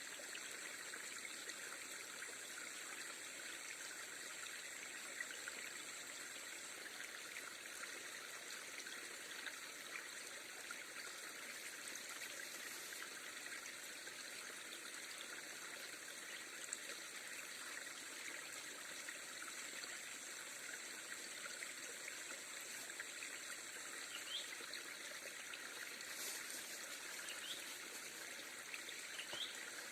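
Shallow river water running and trickling steadily, with a faint thin high tone in the background and a few faint chirps near the end.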